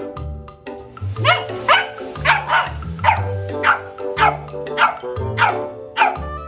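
A dog barking over and over, about two short barks a second, each dropping in pitch, starting about a second in, over steady background music.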